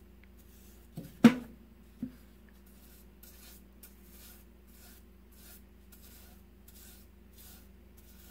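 A brush stroking wet stain onto a wooden star in quick, even swishes, about two to three a second, after three sharp knocks about a second in. A steady low hum runs underneath.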